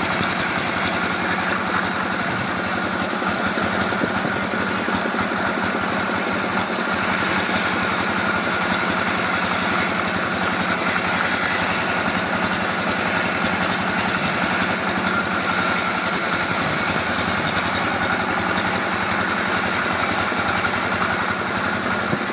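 Band sawmill running steadily: a continuous machine drone with a steady tone through it.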